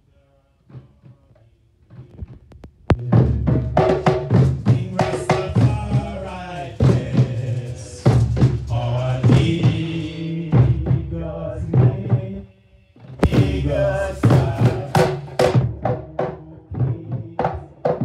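Rastafari Nyabinghi hand drums beating a steady rhythm with a group chanting along, starting about three seconds in after a few soft taps. The drumming breaks off briefly around twelve seconds, then comes back.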